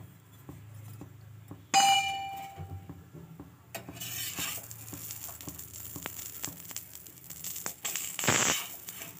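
Oiled aloo paratha sizzling on a hot iron tawa, a steady high hiss that grows from about four seconds in. A single ringing metallic clink comes about two seconds in, and near the end a short louder scrape as a steel spatula is slid under the paratha.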